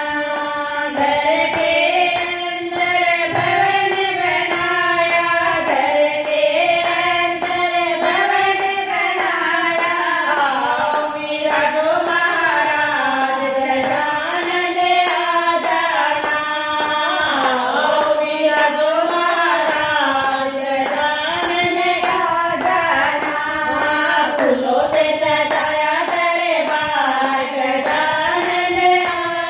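Women's voices singing a Hindi devotional bhajan to Ganesh together into microphones, a continuous flowing melody, with hand-clapping keeping time.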